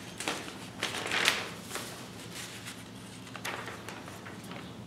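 Paper instruction booklet rustling as its pages are handled and flipped, in a few short bursts, the loudest a little over a second in.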